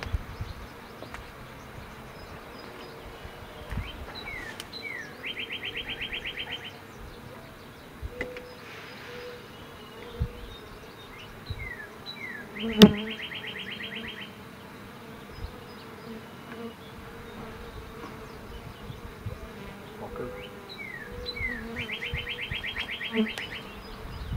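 Honey bees buzzing around an open Langstroth hive. A bird sings three times, each song two quick falling notes and then a fast trill, and a single sharp knock comes about halfway through.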